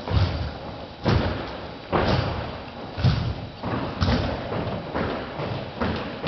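Drill team's rifles and boots striking a hard floor in a repeated pattern of thuds, about one a second with lighter knocks between.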